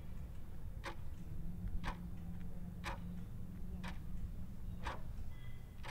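A clock ticking about once a second, five ticks: the timer clock of a homemade time bomb hidden in a bag.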